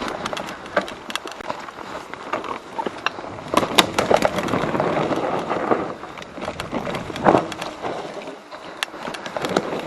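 Mountain bike clattering down a rough trail: a continuous rattle of tyres over rocks and roots, broken by many sharp, irregular knocks.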